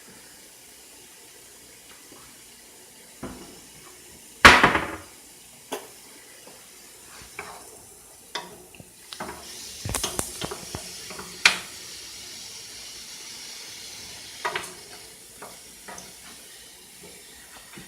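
Sliced mushrooms frying in oil in a pan, a steady sizzle that grows stronger for a few seconds in the middle, with scattered knocks of a utensil against the pan and one loud half-second rush about four and a half seconds in.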